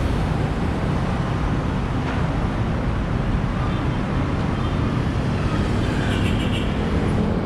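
Steady rumble of city road traffic, with a brief faint high-pitched sound about six seconds in.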